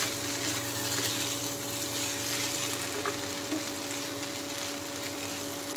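Fusilli pasta in tomato sauce sizzling in a frying pan on the stove while a wooden spatula stirs it, with a few faint scrapes. A steady hum runs beneath.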